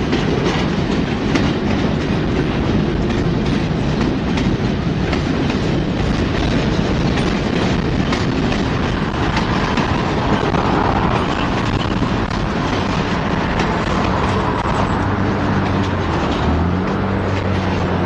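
Cars of a slow-moving Norfolk Southern freight train rolling past, steel wheels clicking over rail joints over a steady rolling noise. A low steady hum joins in near the end.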